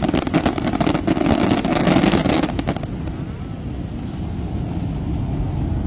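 Fireworks display: dense crackling over a heavy low rumble, which cuts off abruptly about three seconds in, leaving a duller low rumble.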